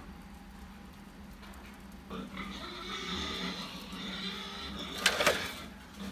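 Mice squeaking for about three seconds, then a sharp clatter in two quick hits about five seconds in as a mouse drops through a plastic bottle funnel into a homemade box trap.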